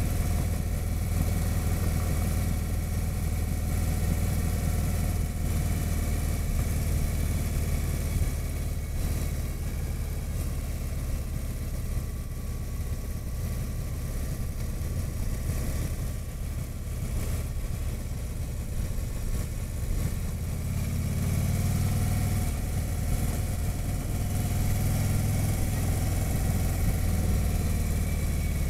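Harley-Davidson touring motorcycle's V-twin engine running at road speed, heard from the rider's seat with wind rushing past the microphone. About two-thirds of the way through the engine pulls harder and its pitch rises a little.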